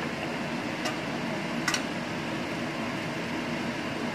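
Steady fan-like whirring noise, with two light metallic clicks about a second apart near the start, as a utensil touches the stainless steel cooking pot.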